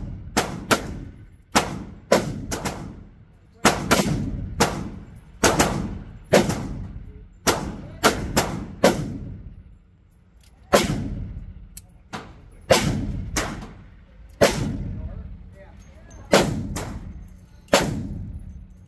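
Gunshots in an indoor shooting range, about twenty at irregular spacing, some in quick pairs, each followed by a short echoing tail; among them .357 Magnum revolver shots, with other lanes firing too.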